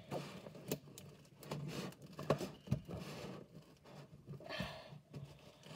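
Scissors slitting the packing tape along the seam of a cardboard box: scattered small scratches and clicks of the blade and tape, with a longer tearing rasp about four and a half seconds in.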